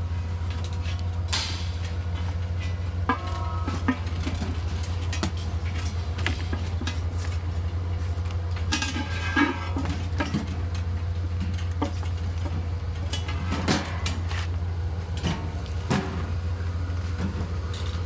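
Scattered knocks and clanks from a five-head bulk vending rack on a metal stand being lifted and carried, with a brief metallic ring about three seconds in, over a steady low hum.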